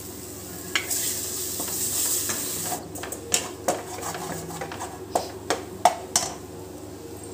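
Egg sizzling in a pan of fried onion-tomato masala, with a hiss for the first few seconds. Then a wooden spatula scrambles it, knocking and scraping sharply against the pan again and again.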